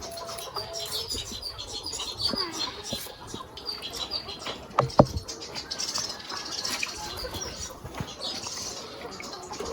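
Birds chirping repeatedly in short high calls, with scattered light clicks and one sharp knock about five seconds in.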